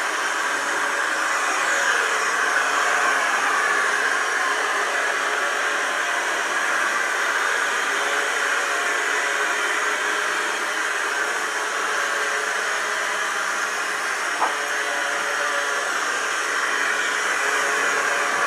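clever&clean M-series 002 robot vacuum cleaner running, a steady whir of its motor and suction with a faint whine in it, and one short click about three quarters of the way through.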